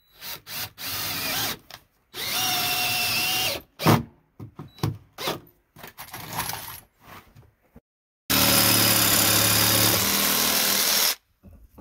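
Cordless drill driving deck screws into wooden porch decking in two short runs, with clicks and knocks of handling between. Near the end a Craftsman cordless jigsaw cuts a deck board in one steady run of about three seconds.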